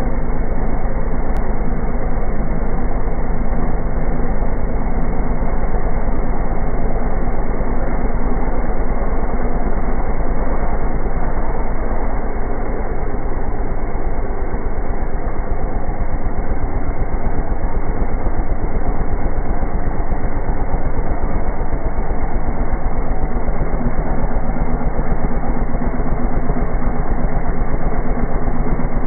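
Honda MSX125 minibike's small single-cylinder engine running at a steady speed for the whole stretch, with no clear revving up or down.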